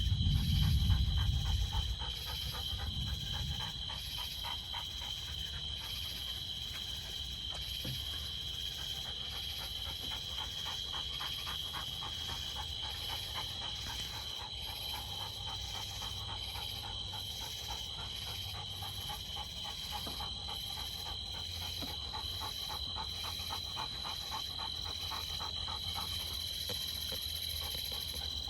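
Low rumble of distant thunder in the first few seconds, fading out. Under it and throughout, a steady outdoor chorus of insects and frogs: a constant high-pitched trill and a fast pulsing call.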